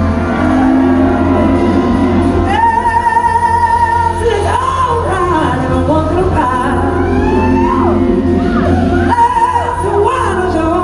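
Live blues-rock band playing, with a woman singing lead over electric guitar and drums; she holds long wavering notes and slides between pitches from a few seconds in.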